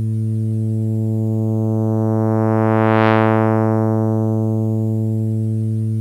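Digitally synthesized tone on a steady low A (110 Hz), made with a discrete summation formula giving upper sidebands only: its harmonics grow brighter toward a buzzy, sawtoothy peak about three seconds in, then fade back to a mellower tone. Some aliasing is audible.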